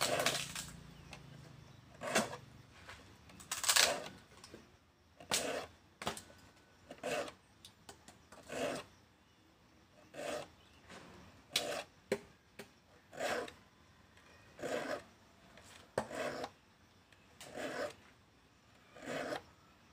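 A hand file rasping across the teeth of a hand saw to sharpen it, short strokes repeating about every one and a half seconds.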